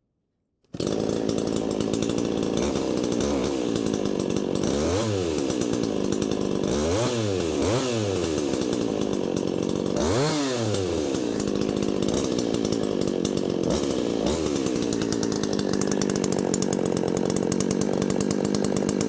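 Two-stroke chainsaw running at high revs. Its engine note dips and climbs back several times as the throttle is eased and opened. It cuts in suddenly just under a second in.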